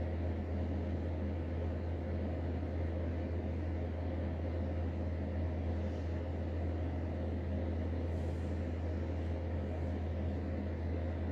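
Steady low hum with a background hiss, unchanging throughout; no burps or other events.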